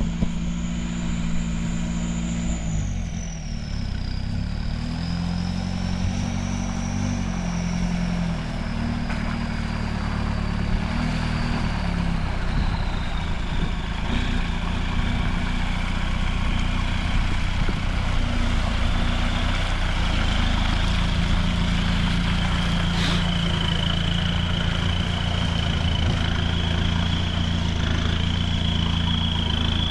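Mahindra Roxor's engine running steadily at low speed as it drives through a shallow muddy pond. A thin high whine slides down in pitch over the first half, then holds.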